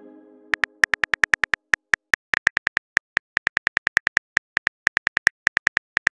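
Phone keyboard click sounds for a text being typed letter by letter: a rapid run of short ticks, several a second, with brief pauses between bursts.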